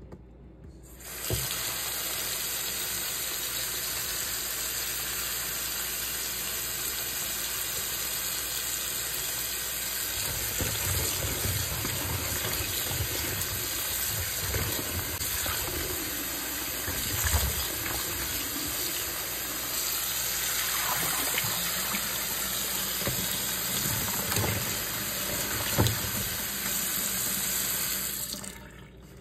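Kitchen tap running into a bowl of peeled potatoes in a sink. The tap comes on about a second in and shuts off near the end, and from about halfway through, water sloshes and splashes as hands rub and rinse the potatoes.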